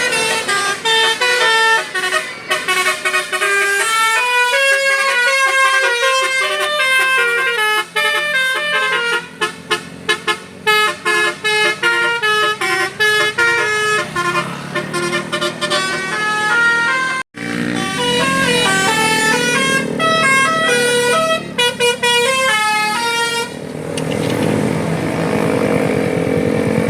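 Bus 'telolet Basuri' musical horn playing a fast melody of stepped notes, with the bus engine running underneath and swelling at times. The melody breaks off abruptly about two-thirds of the way through, then another horn tune follows.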